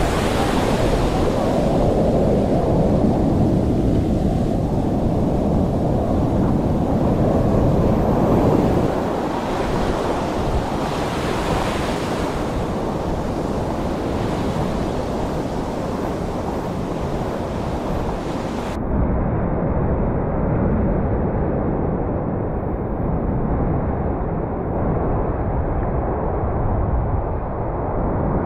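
Ocean surf washing and breaking around a camera held down in the waves, with wind buffeting the microphone. About two-thirds of the way through, the sound suddenly turns duller, losing its hiss, as the waves keep washing.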